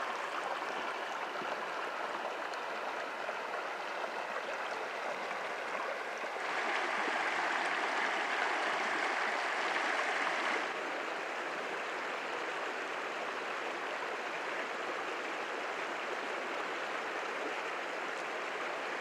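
Small stream running over rocks, a steady rushing of water. It grows louder and brighter about six seconds in, then drops back abruptly about four seconds later.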